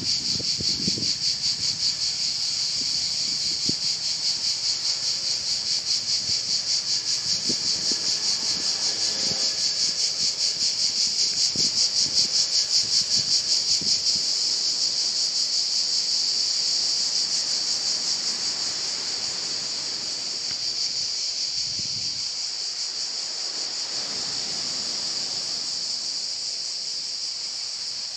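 Loud, high-pitched insect chorus with a fast, even pulse, easing off a little in the second half.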